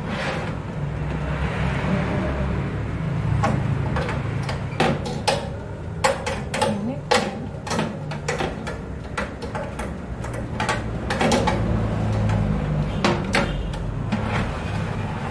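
A series of irregular sharp clicks and knocks over a steady low hum.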